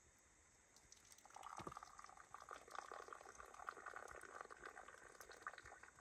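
Faint bubbling of liquid with a dense crackle of small pops, starting about a second in.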